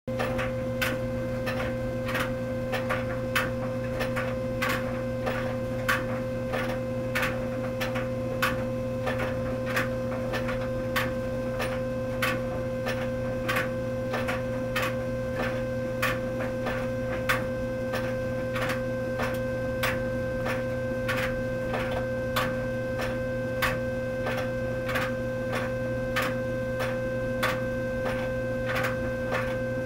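Clothes dryer running with a steady high-pitched whine over its hum, caused by a clogged, uncleaned lint filter. Sharp plastic clacks come about once or twice a second from a coin caught in one of the plastic drum paddles.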